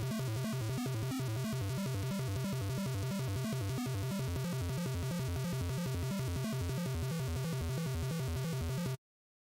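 Background music with a steady pulsing beat, cutting off abruptly near the end.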